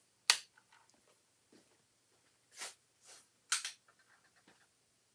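Quiet handling of room lights being switched on: a sharp click near the start and another past halfway, with faint rustling and a couple of soft breathy puffs in between.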